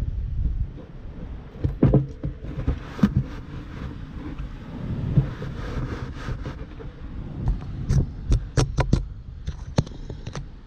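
Low wind rumble on the microphone, broken by scattered sharp knocks and clicks from the camera being handled. There are a couple of knocks about two and three seconds in, then a quick cluster of them about eight to nine seconds in.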